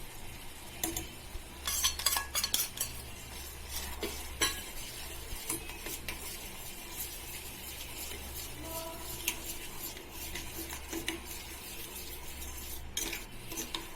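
A spoon stirring sugar syrup with lime juice and ginger in a pan, with irregular clinks and knocks against the pan, thickest in the first few seconds. A low steady hum runs underneath.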